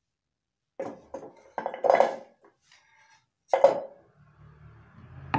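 Slices of red ginger being dropped into a cooking pot, clattering against it in three short spells, the loudest about two seconds in.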